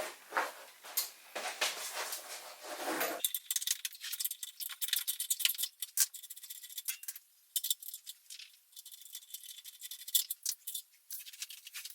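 Ratchet wrench clicking in quick irregular runs as it undoes an exhaust clamp bolt, with light metallic clinks of the tool and fittings.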